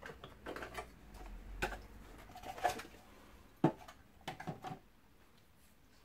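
Scattered faint plastic clicks and knocks from a Hoover Enigma Evo bagged upright vacuum cleaner being handled as its bag door is unclipped and taken off.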